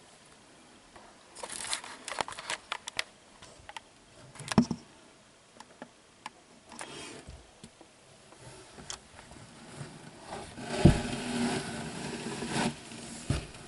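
Scattered clicks, rustles and knocks from hands working in a snake enclosure with aspen bedding and a water dish. There is a sharp knock about four and a half seconds in and another about eleven seconds in.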